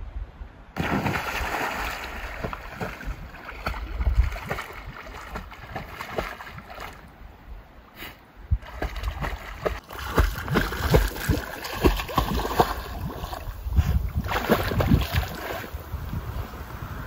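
A dog jumps into a lake with a sudden splash about a second in, then swims out, paddling and splashing through the water.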